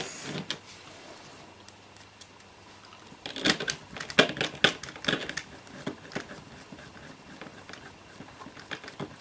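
Small plastic parts of a handheld in-flight entertainment controller being handled and fitted together: scattered light clicks, with a quick run of sharper clicks and knocks from about three to five and a half seconds in.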